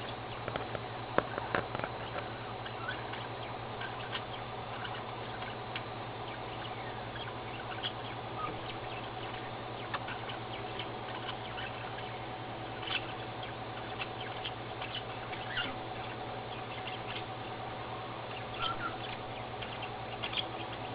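Baby cockatiel's beak and feet making scattered light taps, clicks and scratches as it pecks and plays, with a few faint short chirp-like sounds, over a steady low hum.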